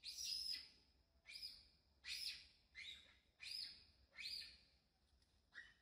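Baby monkey crying: a faint run of short, high, squealing calls, each one falling in pitch, about seven of them a little under a second apart.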